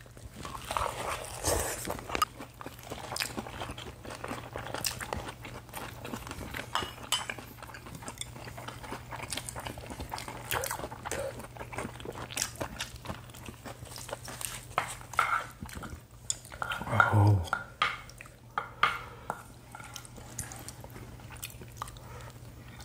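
Eating at the table: chopsticks and metal spoons clicking and scraping against bowls, dishes and a pan in many short, irregular clicks, with some chewing, over a faint steady low hum. A louder burst of sound comes about three-quarters of the way through.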